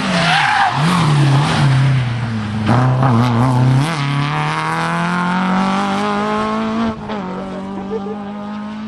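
Rally car sliding through a corner with its tyres squealing, then accelerating away. The engine note climbs steadily for a few seconds and drops once at a gear change near the end.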